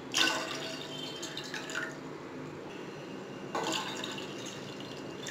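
Water poured from a steel tumbler into a stainless steel pot, splashing onto the water already in it; a second glassful starts pouring about three and a half seconds in.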